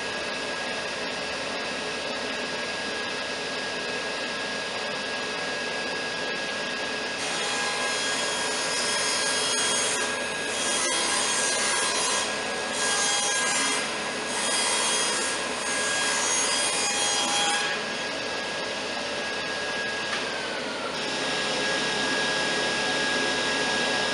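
Table saw and dust collector running steadily. For about ten seconds, from roughly a quarter of the way in, the blade rips a 1x8 board lengthwise, and the cutting noise rises and dips several times as the board is fed through.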